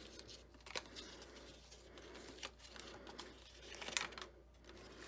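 Patterned cardstock being folded up along its score lines by hand: faint crinkling and rustling of paper with a few light taps, the sharpest about four seconds in.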